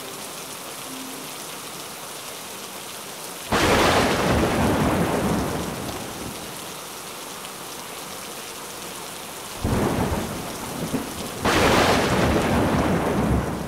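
Rainstorm: a steady hiss of rain, broken by a sudden loud rush of noise about three and a half seconds in that slowly fades, and two more sudden loud rushes near the end.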